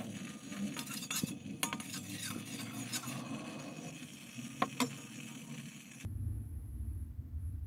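Metal spoon clinking and scraping against a stainless steel bowl as a wet slurry of crystals is stirred: scattered light clinks, several in the first three seconds and a close pair later. About six seconds in this gives way to a steady low hum.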